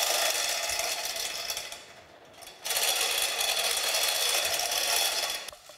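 Gantry-crane chain hoist running in two spells, with a pause of about a second between them, lowering a heavy cast-iron planer table.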